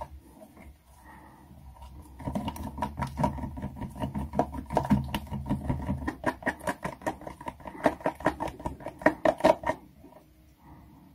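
A hand mixing thick pancake batter in a plastic tub: a fast run of wet slaps that starts about two seconds in and stops shortly before the end.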